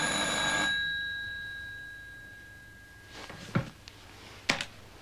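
Landline telephone bell ringing. The ring cuts off under a second in and its tone fades away over the next couple of seconds. Then come a few sharp clicks and knocks as the handset is lifted.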